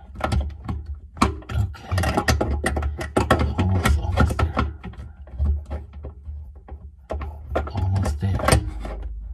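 Irregular clicks and metallic knocks of hand tools working the faucet mounting hardware beneath a kitchen sink, over a low rumble.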